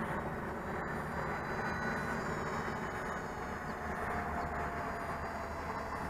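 Steady rushing wind noise on the microphone, with the faint whine of a distant RC model airplane's motor gliding slowly in pitch.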